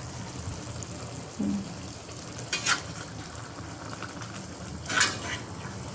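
Sambal with patin fish sizzling steadily as it fries in a pan, with a utensil scraping and stirring against the pan twice, about halfway through and near the end.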